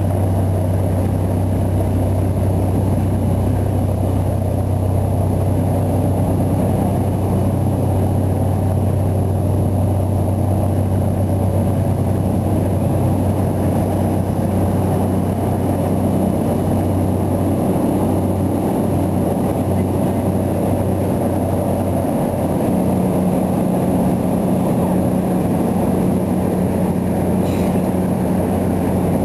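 Cabin noise of a Cessna Caravan's single Pratt & Whitney PT6A turboprop and propeller: a loud, steady low drone. A second, slightly higher hum comes up about three-quarters of the way through.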